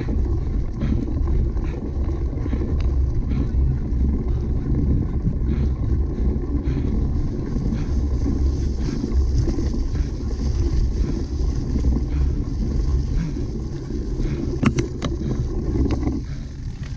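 Wind buffeting the microphone over the rumble of a cyclocross bike riding over rough ground, with scattered clicks and rattles. The low rumble drops away about a second before the end.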